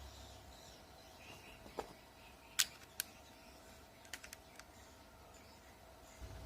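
Swiftlets making scattered sharp echolocation clicks, single and in short quick clusters, over a faint steady tone.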